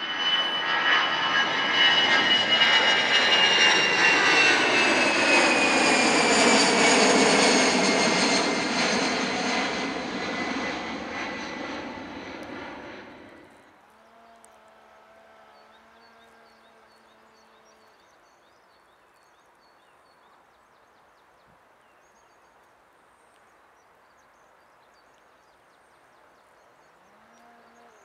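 Air France Airbus A320-family twin-jet with CFM56 turbofans climbing out after take-off and passing close. The jet noise is loud, and its high whine falls steadily in pitch as the aircraft goes by. About 13 seconds in the sound cuts off suddenly, leaving only a faint, distant jet hum.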